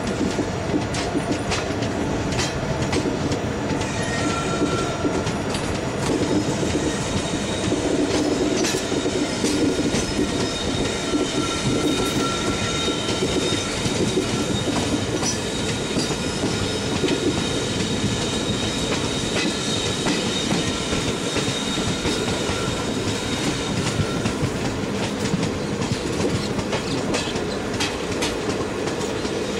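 Indian Railways passenger train running, heard from aboard the coach: a steady rumble with the wheels clacking over rail joints, and a thin, high wheel squeal that comes and goes.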